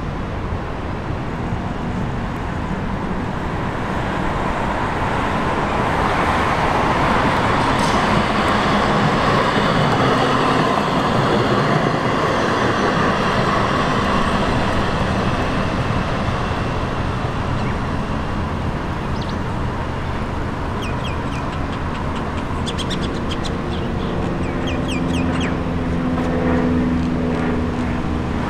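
Street traffic with a low-floor Siemens Combino (D1 class) tram running on street tracks, a steady rumbling hiss that swells for several seconds. Birds chirp in short repeated calls in the second half.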